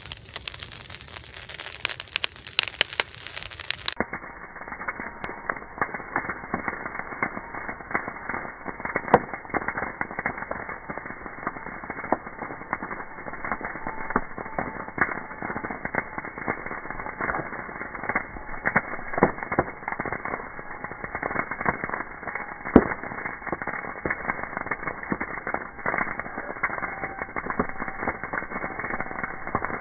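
A brush pile of branches and leaves burning, crackling steadily with frequent sharp pops. After about four seconds the sound turns dull and muffled, as the audio is slowed down with the slow-motion footage.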